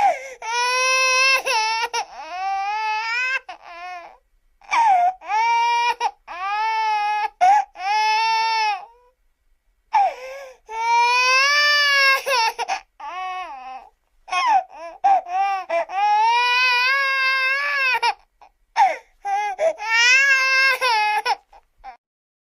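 Baby crying: a series of high, pitched wails, each lasting from about one to four seconds, separated by short pauses, and stopping shortly before the end.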